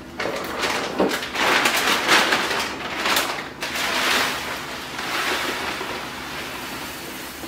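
Dried mealworms poured into a jar: a dry, rattling hiss that comes in a few swells and slowly fades, after a single click about a second in.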